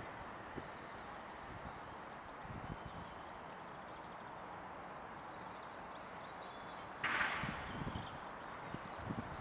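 Outdoor park ambience: a steady, even background hiss with faint bird chirps, and a short hissing burst about seven seconds in.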